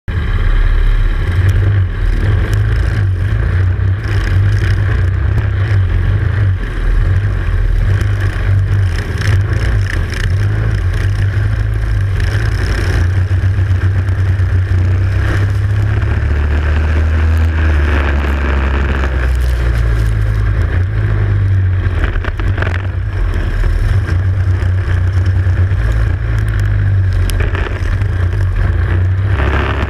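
Racing kart engine heard from a camera mounted on the kart, running hard at race speed with other karts' engines close by. The engine note drops for a few seconds a little past halfway, then picks up again, with frequent buffets and rattles on the microphone.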